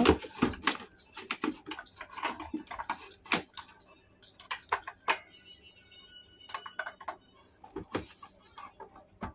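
A plastic dog toy and its orange plastic base being handled, with a paper instruction sheet rustling: a string of irregular clicks, taps and knocks. Faint steady high tones sound briefly around the middle.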